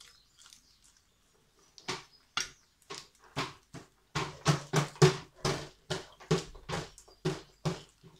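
Close-up crunchy chewing of raw vegetables, about two chews a second, starting about two seconds in.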